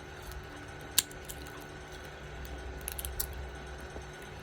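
Crunchy tortilla chips crackling: one sharp crack about a second in, then a few quieter crackles about three seconds in.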